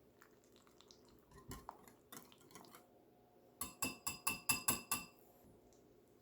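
Kitchen utensil clinking against a bowl: light scrapes and taps, then a quick run of about eight sharp, ringing clinks a little past halfway.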